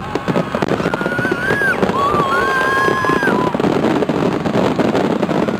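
Aerial fireworks crackling and popping in a dense continuous stream, with high whistling tones that rise slightly, heard twice in the middle.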